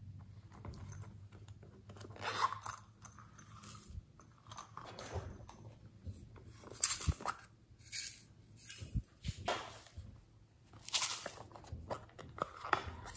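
Small plastic slime containers handled, opened and emptied into a glass dish: irregular crackling, clicks and scrapes of plastic, with sharper cracks about 7 and 11 seconds in.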